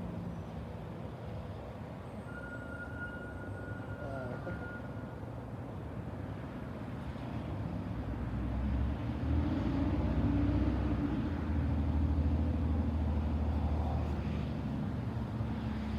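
Motor vehicle traffic, a low engine rumble that grows louder about halfway through as a vehicle comes close.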